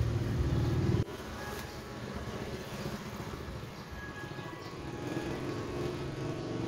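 Low rumbling background noise, loud for the first second and then dropping suddenly to a steadier, quieter rumble.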